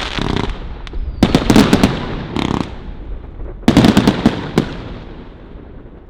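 Pryme 'Dakyn' firework going off in volleys of sharp bangs with crackling tails. One cluster comes about a second in, a shorter burst follows, and a loud cluster near four seconds in fades into a rolling echo.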